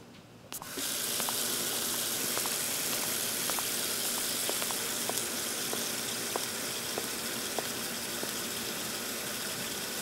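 Tap running into a stainless steel sink during dishwashing, a steady rush of water that starts abruptly, with scattered faint clicks over it.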